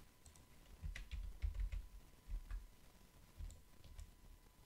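Faint computer keyboard typing: a scattered run of keystroke clicks with soft low thuds under them, a value being typed in.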